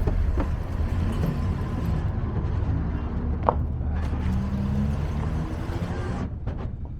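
Truck driving along a road, heard from the open back: a steady low engine and road rumble under a rush of wind on the microphone, which eases about six seconds in.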